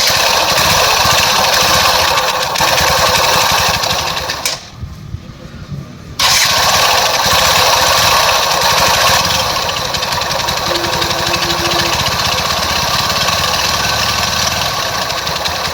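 Bajaj Discover 100cc single-cylinder four-stroke motorcycle engine running loudly. Its sound drops away for about two seconds near the middle, then comes back suddenly at full level and runs on steadily.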